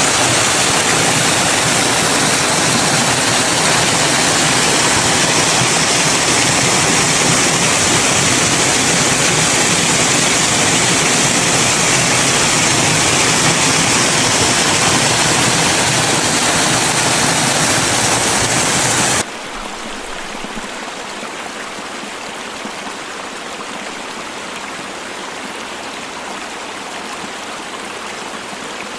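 Waterfall: a thin cascade of water falling down a rock face and splashing into a shallow pool, a steady rushing hiss. About two-thirds of the way through it drops suddenly to a quieter, thinner rush.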